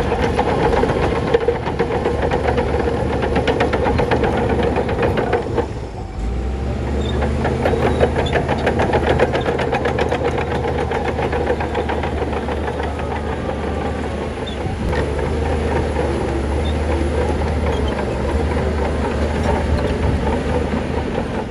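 Shantui crawler bulldozer working: its diesel engine runs steadily under the rapid metallic clatter of the steel tracks. The sound dips briefly about six seconds in, then carries on with a stronger low engine note.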